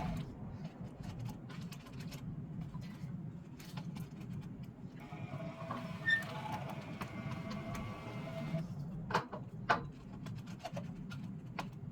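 MIG welding wire being wound by hand onto a spool turning on a wooden bolt jig: a steady squeak for a few seconds midway, then two sharp clicks of the wire near the end.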